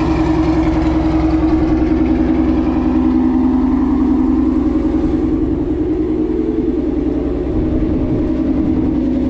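2016 Ford Mustang GT's 5.0 Coyote V8 with Kooks headers and a Corsa Extreme axle-back exhaust idling steadily after a cold start.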